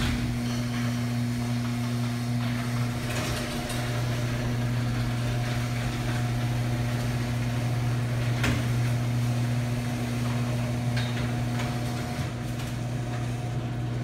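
Overhead garage door opener motor running with a steady hum as it lifts a foam-insulated sectional garage door, with a few clicks and knocks from the door sections and rollers in the track. The door travels smoothly, with no binding from the added insulation.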